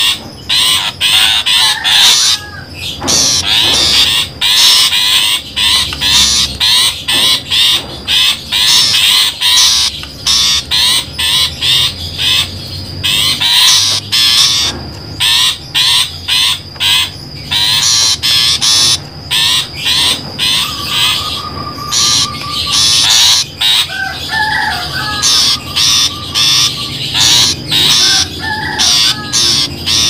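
Long-tailed shrike (pentet) calls from a recorded lure track: harsh, rapid chattering in short repeated bursts, with clearer whistled phrases in the later part.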